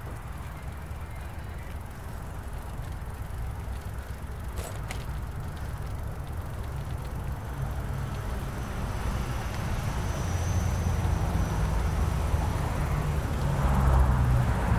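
Low rumble of wind and riding noise on a bicycle-mounted camera while cycling, growing steadily louder, with a faint click about a third of the way in.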